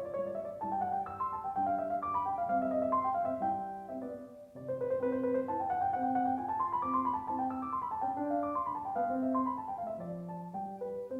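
Background piano music: a gentle melody over a steady accompaniment, with a brief pause about four and a half seconds in.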